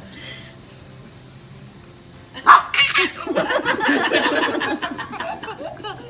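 A sudden sharp sound about two and a half seconds in, then a few seconds of rapid, pulsing laughter.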